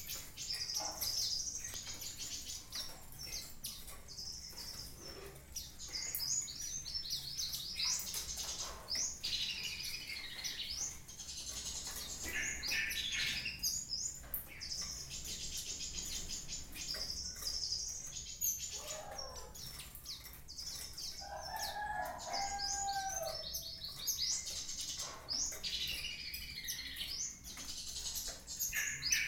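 Small caged songbirds chirping with quick, high calls while one bathes in a large bath dish, its wings fluttering and splashing the water. There is a short, lower call a little past the middle.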